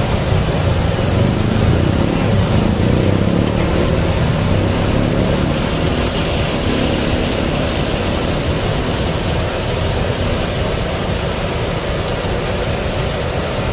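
A vehicle engine idling steadily, a loud low hum that does not let up.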